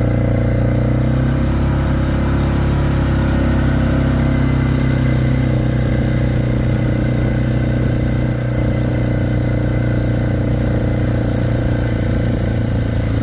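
Four-wheeler (ATV) engine running steadily at a low, even speed, close to the microphone.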